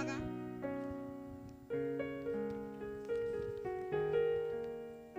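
Slow, soft piano music with no voice: single notes and chords struck every second or so, each left to fade away.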